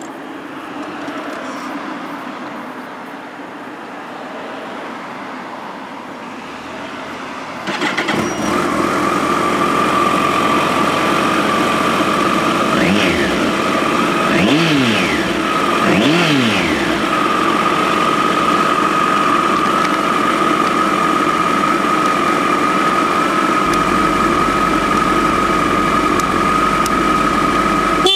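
2016 Kawasaki Ninja ZX-14R's inline-four engine starting up about eight seconds in, then idling steadily through its exhaust, with three quick throttle blips near the middle where the pitch rises and falls.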